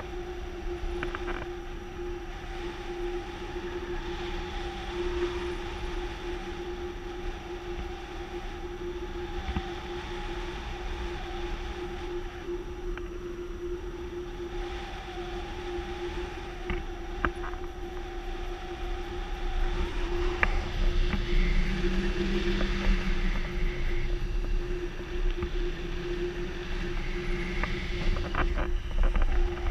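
Wind rushing over the camera microphone in flight under a tandem paraglider, growing louder about two-thirds of the way in, with a steady tone held under it and a few light clicks.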